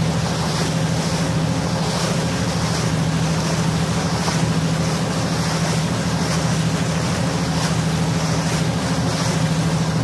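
Passenger boat's engine running steadily under way, a constant low hum under the rush of water from the wake and wind on the open deck.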